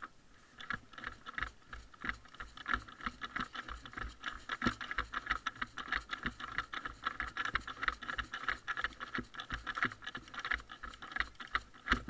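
Airsoft guns firing across the field: a near-continuous patter of rapid clicking shots, in strings and overlapping bursts, with low bumps underneath.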